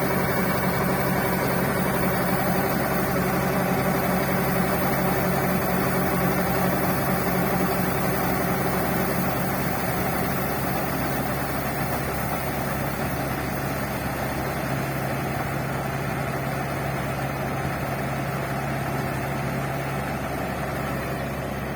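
Yanmar combine harvester's diesel engine and machinery running steadily with a constant drone, easing slightly about halfway through.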